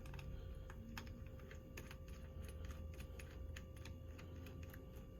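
Irregular light clicks of small screws and battery hardware being picked through and handled by hand, over a steady low hum.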